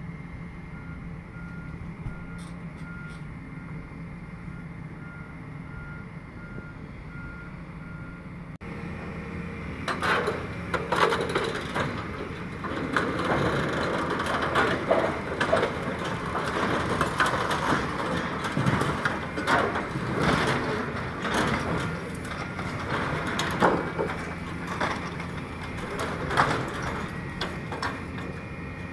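Heavy Volvo EC700 demolition excavators' diesel engines running with a reversing alarm beeping steadily, a little over once a second. After about nine seconds the beeping stops, and a steel building frame clanks and knocks repeatedly as an excavator's grab tears it apart.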